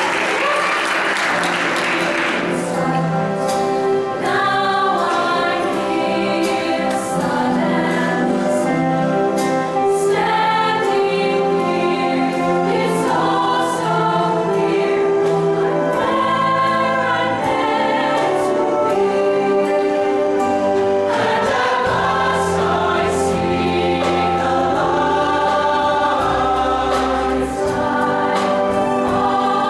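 Mixed show choir singing a song in harmony through stage microphones. A low bass part comes in about two-thirds of the way through.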